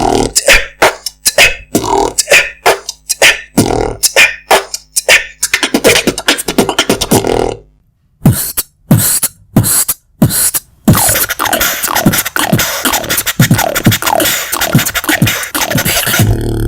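Beatboxing: a fast mouth-percussion beat of kicks and snares over a low steady hum. It breaks off briefly about eight seconds in, picks up with sparser hits, then gives way to a string of quick falling sweeps over a steady hiss.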